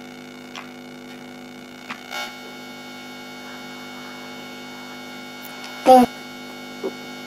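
Steady electrical mains hum on the recording, with faint clicks of plastic toy building blocks being handled and one short, louder knock about six seconds in.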